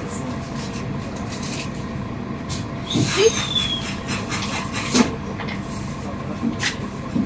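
Steady hum of a city public-transport vehicle, heard from inside while it stands waiting to move off, with a few sharp clicks and knocks about three and five seconds in and again near the end.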